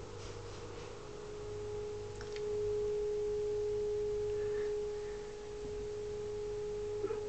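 A steady, single-pitch beat tone from the Uniden 2020 transceiver's receiver audio: the signal generator's carrier at the IF frequency getting through as the IF null is misadjusted. It grows louder about two and a half seconds in and drops back a little near five seconds.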